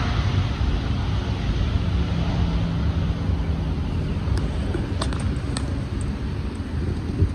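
Steady low jet noise from a Boeing 737-800's CFM56 engines as the airliner rolls out after landing, mixed with wind on the microphone. A few light clicks come about five seconds in.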